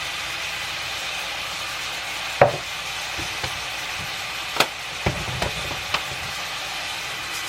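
Fish cake stir-frying in a pan with a steady sizzle, while a cooking utensil knocks against the pan about five times, loudest about two and a half seconds in.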